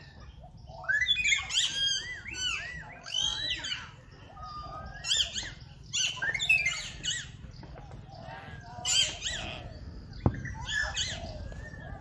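Small birds chirping and twittering in quick clusters of short, arched notes, several calls overlapping, over a steady low rumble. A single sharp click comes about ten seconds in.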